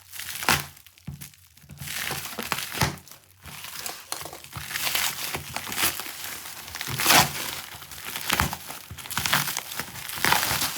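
Cardboard packaging being cut open and pulled apart by hand: irregular rustling and scraping, with a louder sharp crack about seven seconds in.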